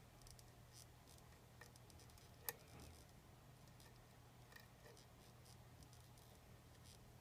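Faint, scattered metallic clicks of a hook pick and tension wrench working the pins of a lock, with one sharper click about two and a half seconds in, over a low steady hum.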